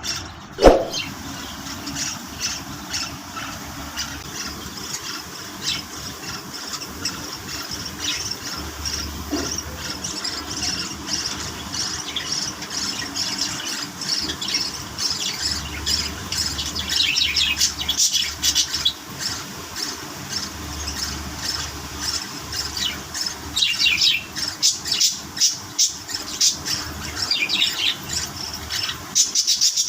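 Pet budgerigars chirping and chattering, with short squawks; the calls get busier in the second half. One loud, short sound comes just under a second in.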